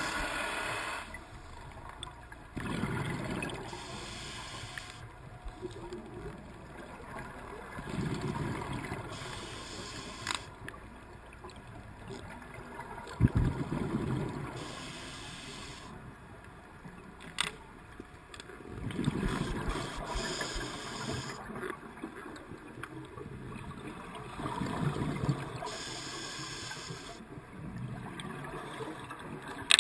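Scuba diver's regulator breathing underwater: a hissing inhale, then a gurgling rush of exhaled bubbles, repeating about every five to six seconds, with a few sharp clicks.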